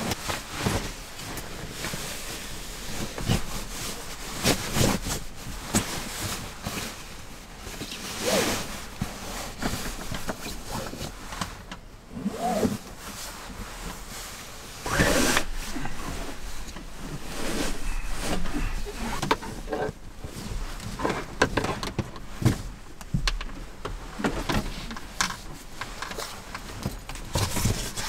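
Sleeping bag fabric rustling and swishing as it is rolled up and stuffed into its stuff sack, with irregular bumps and knocks of handling. Near the end a folding foam sleeping mat is picked up and handled.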